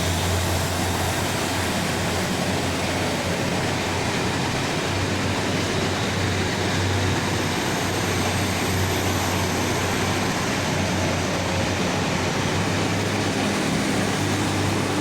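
Train running at a station platform: a steady rumble with a low hum and even noise throughout.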